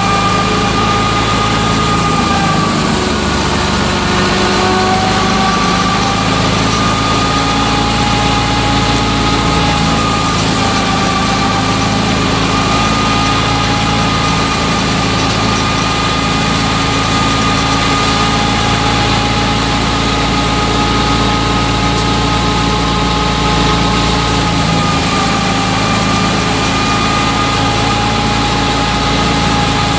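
Wheat thresher driven by a FIAT 640 tractor's drive shaft, running steadily under load as wheat is fed in: a constant machine din with a whine that dips in pitch briefly a few seconds in and again near the end.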